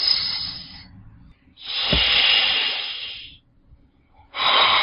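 Snake hissing in separate long exhalations: one fading out in the first second, another of about two seconds in the middle, and a third starting near the end. A brief click sounds at the start of the middle hiss.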